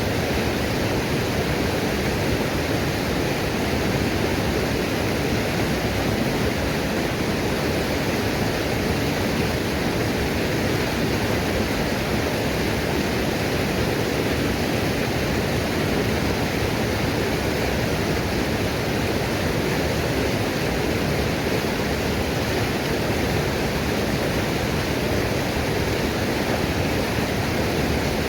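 Waterfall rushing steadily: an even, unbroken wash of falling water that does not change in level.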